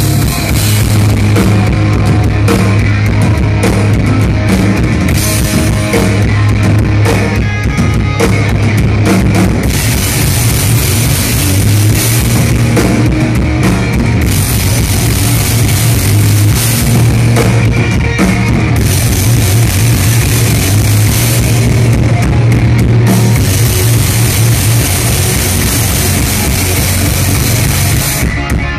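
Rock band playing live at full volume: electric guitars, bass and drum kit, with crashing cymbals that come and go between sections, heard from within the audience.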